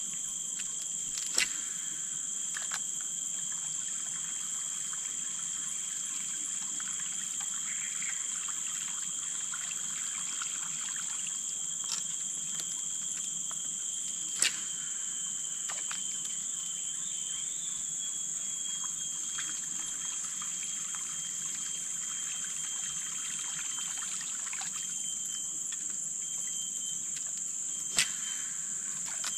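Flood water trickling and pouring steadily through brush and debris at a river's edge, under a constant high-pitched hiss. Four sharp clicks stand out, about a second in, near the middle (twice) and near the end.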